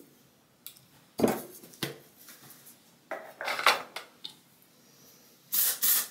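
A metal aerosol hairspray can and toiletry bottles clinking and knocking as they are handled on a bathroom counter, then two short spray hisses near the end.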